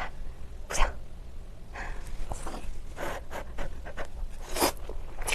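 Noodles slurped and chewed close to the microphone, in irregular short breathy bursts.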